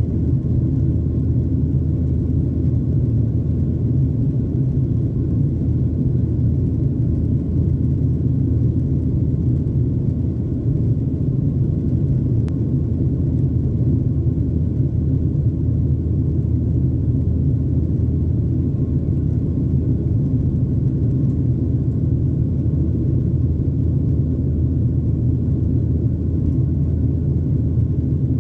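Steady low rumble of engine and airflow noise heard inside the cabin of a Boeing 737-900 in flight just after takeoff, from its CFM56-7B turbofans and the air rushing past the fuselage.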